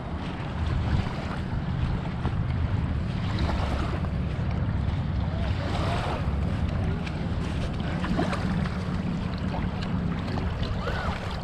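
Wind buffeting the microphone as a steady low rumble, over small waves lapping at the shore, with faint distant voices.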